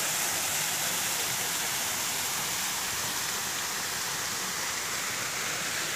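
Steady rushing hiss of a shallow stream running over rocks and trickling down a stone wall.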